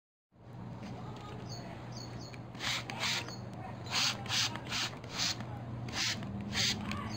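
Trigger spray bottle squirting water onto glass in about eight quick spritzes, starting almost three seconds in, each a short hiss.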